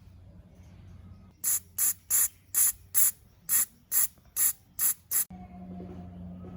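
Ten short hissing bursts of pressurized spray in quick succession, about two or three a second, that stop abruptly near the end.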